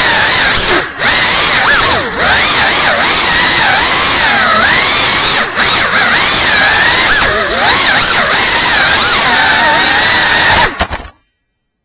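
FPV quadcopter's electric motors and propellers whining loudly, the pitch rising and falling constantly as the throttle changes, with brief drops about one, two and five and a half seconds in. The sound stops abruptly near the end.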